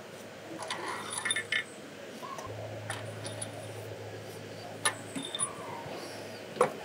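Steel cylinder head bolts and their washers clinking against the cylinder head as they are lifted out of their bores with a thin pickup tool: a handful of sharp, separate metal clinks spread over several seconds, with a low steady hum coming in partway through.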